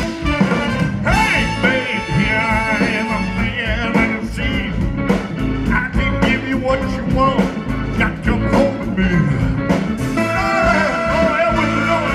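Blues band music playing, with guitar and a steady drum beat.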